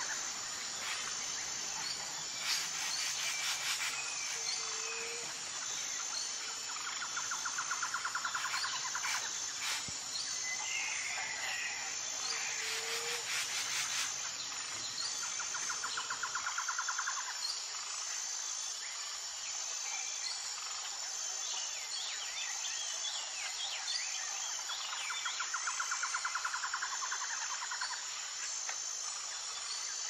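Forest ambience: a steady high-pitched insect drone, with a rapid pulsing trill that comes back every several seconds and scattered bird chirps.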